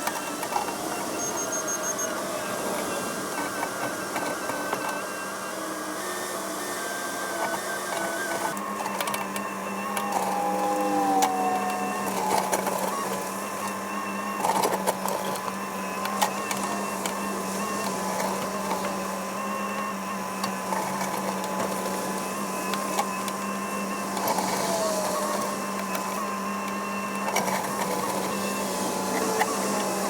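Cat 308 excavator's diesel engine running steadily under work, with short whines that slide in pitch twice and scattered knocks as the machine digs at trees.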